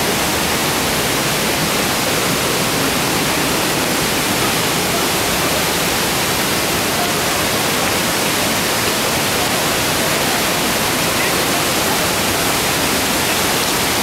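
Steady rushing noise of the Düden Waterfall's falling and churning water, loud and unbroken.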